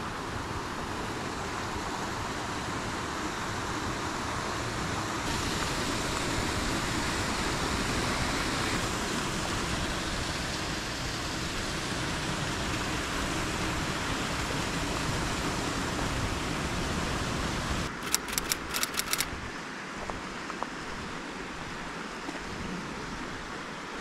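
Mountain stream rushing steadily. About three-quarters of the way through comes a quick run of about ten sharp clicks lasting just over a second.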